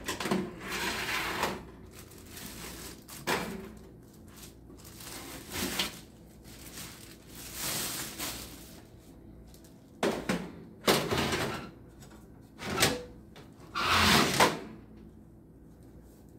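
Metal trays and wire racks of a Ninja Foodi XL Pro air fryer oven being slid in and out of the oven and handled, a series of scraping clatters and knocks with short pauses between, the loudest near the end.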